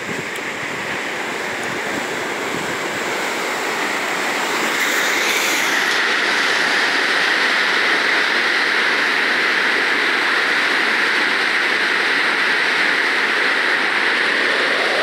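Heavy river flow rushing through the locks: a steady rush of water that grows louder over the first five seconds or so, then holds.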